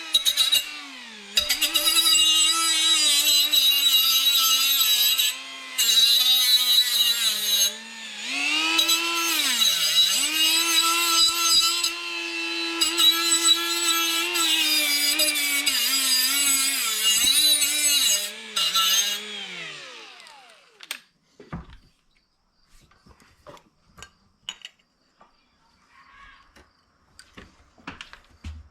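Handheld electric power tool working on the car body's sheet metal, running in several bursts, its pitch sagging and recovering as it is pressed into the work. It winds down and stops about twenty seconds in, leaving a few faint taps and clicks.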